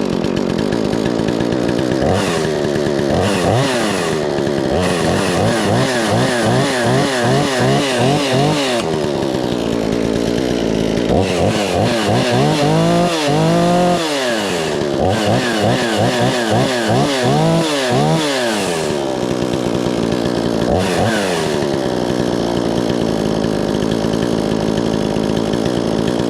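22-inch gas-powered chainsaw running just after a cold start, off choke. Its throttle is blipped over and over, the engine rising to high revs and falling back to idle for most of the time, then it settles to a steady idle near the end.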